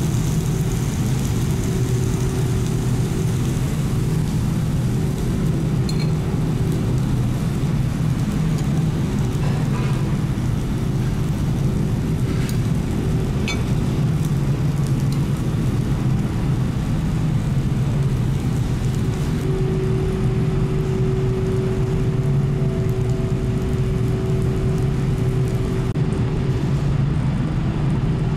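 Steady low drone and hum of a ferry's engines and hull vibration, with a few faint clicks.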